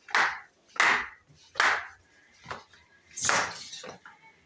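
Footsteps in slippers going down a flight of stairs, a series of slaps about one every three-quarters of a second.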